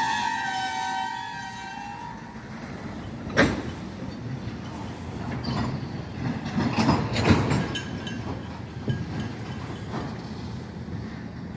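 Freight train of loaded tank cars rolling past with a steady rumble of wheels on rail and sharp clanks of wheels over rail joints, the loudest about three and a half seconds in and a group around seven seconds. A high-pitched squeal dies away in the first second or two.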